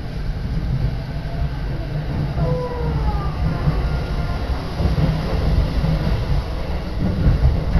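Inside an electric commuter train pulling away from a station: a steady low rumble of wheels and running gear, with a faint rising whine from the traction motors as it picks up speed.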